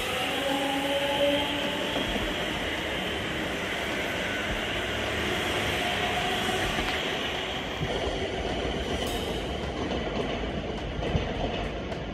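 ScotRail electric multiple unit running past along the platform: steady wheel-on-rail rumble with clickety-clack, and a motor whine that shifts in pitch over the first couple of seconds.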